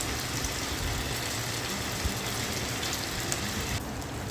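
Corn-batter pakoras sizzling in hot oil in a kadhai as they are dropped in one by one: a steady frying hiss with a few small clicks, the hiss thinning briefly near the end.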